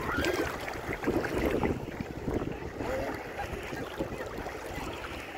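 Sea water sloshing and splashing close to the microphone, which is held just above the surface, with wind buffeting the microphone. The splashing is loudest in the first two seconds.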